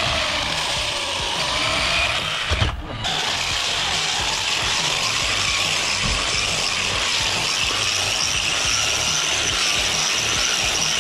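Electric RC monster truck's motor and drivetrain whining as it drives, the pitch rising and falling in the first two seconds. The sound breaks off abruptly a little under three seconds in, then a steady high whine carries on.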